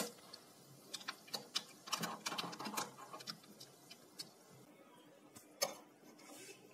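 Light, irregular clinks of a spoon and ice cubes against a glass mug as an iced drink is stirred. The clinks thin out after about four seconds, with one louder click near the end.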